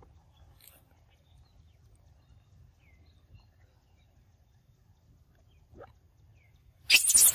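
Mostly quiet with a faint low rumble, then near the end a sudden loud, shrill screeching from young long-tailed macaques squabbling over a mango.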